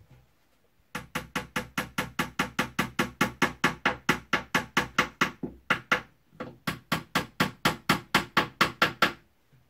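A small hammer tapping pegs into a chipboard bed-frame panel in quick, even strikes, about four or five a second, with a short break about five seconds in before the tapping resumes.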